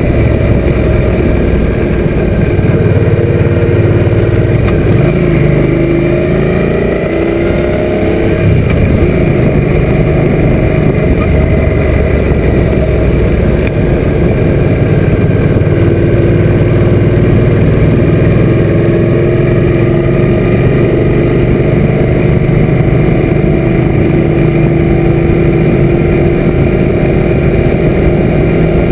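Suzuki M800 V-twin motorcycle engine running at road speed, with wind noise over the mounted camera. About six seconds in, the engine note slides up and down as the revs change, then holds steady.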